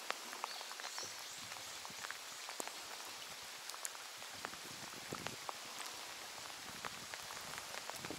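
Rain falling steadily, with scattered sharp taps of single drops.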